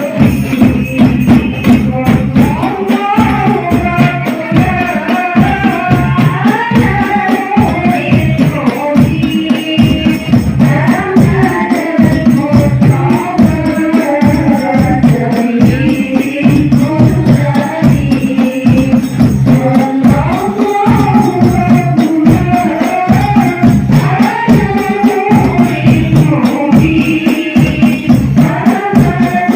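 Hadroh music through a PA sound system: rebana frame drums beat a dense, driving rhythm under a sung devotional melody.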